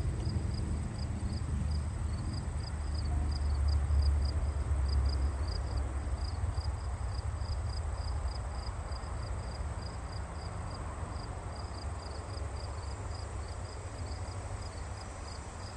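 An insect chirping steadily in a high, even pulse about three times a second, over a low, uneven rumble that is strongest in the first five seconds and then eases off.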